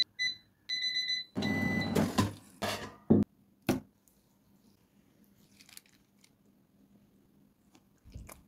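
Digital air fryer beeping a few short, high electronic beeps, its cooking-done signal. Then come a couple of seconds of louder handling noise and a single click, and the rest is nearly silent.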